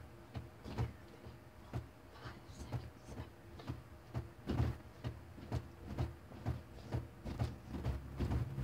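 Jumping jacks: feet landing on the floor with a regular thud, about twice a second.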